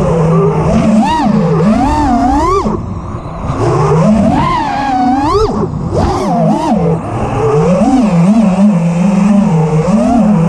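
Motors of a 5-inch FPV freestyle quadcopter (T-Motor F40 Pro IV, 1950 KV) whining, the pitch rising and falling sharply again and again as the throttle is punched and chopped through freestyle moves.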